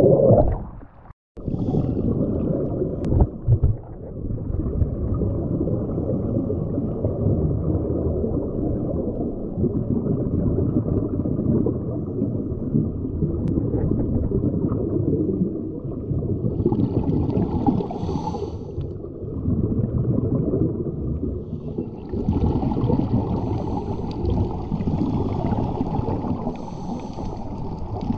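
Muffled underwater sound of a scuba dive heard through a submerged camera: a steady dull rush of water and bubbles. A brighter hissing, bubbling stretch comes about two-thirds of the way in and again near the end.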